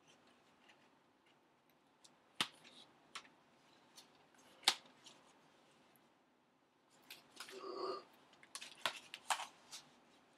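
Handling noise from a multi-disc DVD digipack: scattered sharp clicks and taps of the plastic disc trays and cardboard as it is turned and folded, a brief scraping slide about three-quarters of the way through, then a quick run of clicks near the end.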